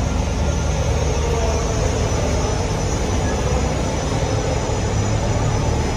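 Steady mechanical rumble and low hum of a gondola ropeway station's machinery: the tyre conveyors and drive wheels that move the gondolas around the terminal.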